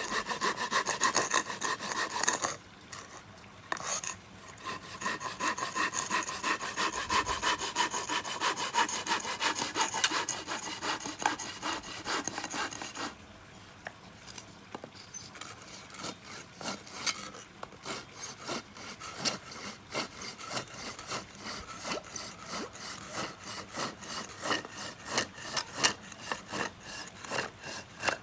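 Hand saw cutting through wood with quick, steady back-and-forth strokes. It pauses briefly after about two seconds and again about halfway through, then resumes more softly.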